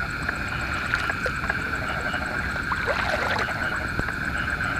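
Night chorus of frogs and insects in a flooded rice paddy: a steady high trill with evenly repeating chirps over it, and a few faint short calls about three seconds in.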